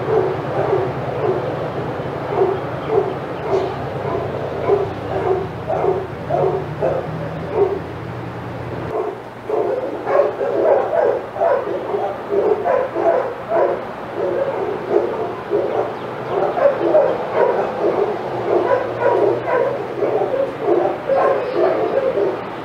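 Several dogs barking and yipping excitedly in a rapid, unbroken run of overlapping barks, growing denser and louder after about ten seconds.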